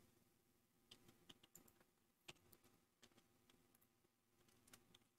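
Near silence with faint, irregular clicks of a computer keyboard and mouse as shortcuts are pressed and vertices dragged.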